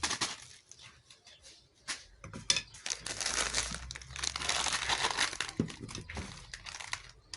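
Crinkling and rustling of a plastic bag with scattered sharp clicks, as table salt is handled and added to the water.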